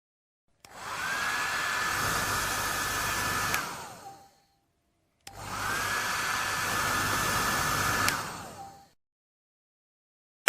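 Hair dryer switched on twice. Each time it spins up to a steady blowing hiss with a high whine, runs about three seconds, then switches off with a click and winds down as the whine drops. A short click comes near the end.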